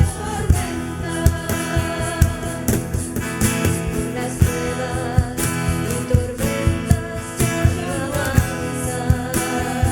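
A worship song: singing over instrumental accompaniment with a steady beat.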